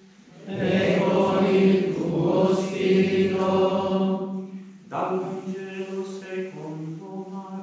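Church singing of a liturgical chant by a group of voices over a steady held low note. The singing is full and loud for the first few seconds, dips just before five seconds in, then carries on thinner and quieter.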